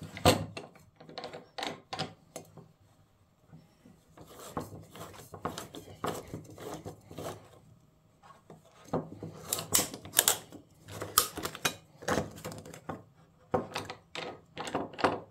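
STP spin-on oil filter's steel can clicking and knocking against a hand-operated oil filter cutter as it is set in and turned to cut it open. The clicks come irregularly in clusters, busiest in the second half.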